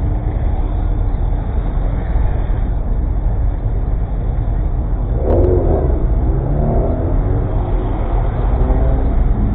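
Car engine and exhaust running at low speed in slow traffic, a steady low rumble, with a short click and a brief rise in engine note about five seconds in.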